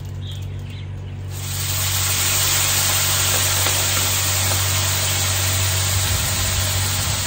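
Sliced squash and zucchini sizzling on a hot Blackstone flat-top griddle: a steady, loud hiss starts about a second in as the vegetables hit the hot steel. A steady low hum runs underneath.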